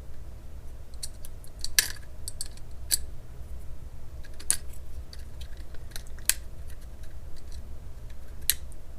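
Scattered sharp clicks and small taps of a Blu C4 smartphone's plastic and metal parts being handled as its motherboard-to-touchscreen connectors are unclipped, over a steady low hum.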